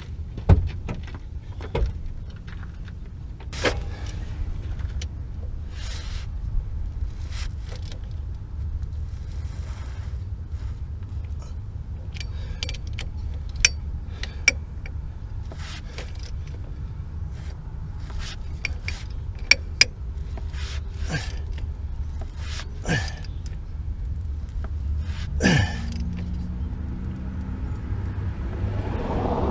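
Irregular metallic clicks and clinks of hand tools and bolts as a rear driveshaft is fastened up under a Jeep Wrangler, over a steady low rumble.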